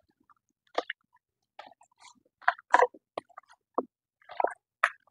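Raw chicken pieces squishing and slapping against each other and the bowl as a hand tosses them in dry breading mix, in short, irregular bursts.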